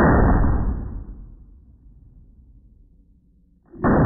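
Glock 26 Gen4 9mm pistol shots slowed down by slow-motion playback: a deep, drawn-out boom fading over about a second, then a second shot near the end.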